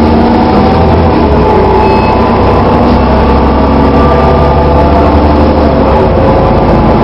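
Dennis Trident double-decker bus running, a steady loud engine and drivetrain drone whose deep hum shifts about six seconds in.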